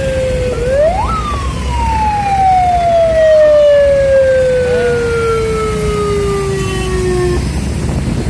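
A wailing siren: its pitch rises quickly about half a second in, then falls slowly for about six seconds before it stops, and it starts to rise again at the very end. A low rumble runs underneath.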